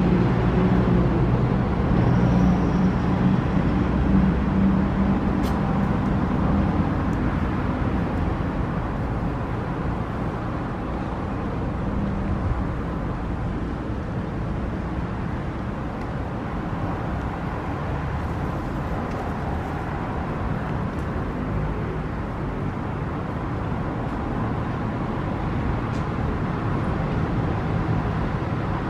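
Steady road-traffic rumble, with a vehicle engine running louder through the first several seconds before easing back to the general hum of traffic.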